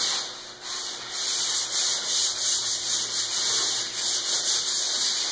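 Hand sanding of a bare plywood boat hull: sandpaper rasping over the wood in repeated back-and-forth strokes.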